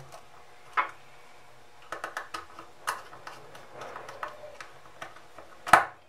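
Small scattered clicks and taps of wires being handled and pushed into the screw terminals of a plastic 11-pin relay base, with one sharper, louder click near the end.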